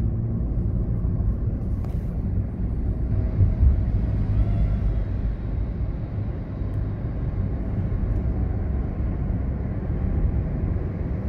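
Steady low rumble of a car driving on the road, engine and tyre noise, heard from inside the moving car.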